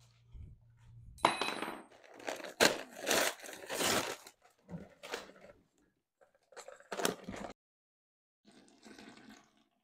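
A heavy paper sack of powdered joint compound being torn open: a run of loud ripping and crinkling, then shorter rustles. Near the end, a softer stretch of water trickling into a plastic bucket.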